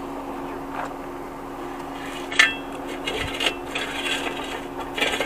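Electrical wire being pulled and dragged across concrete: a sharp metallic clink about two and a half seconds in, then repeated scraping and rubbing as the wire slides. A steady low hum runs underneath.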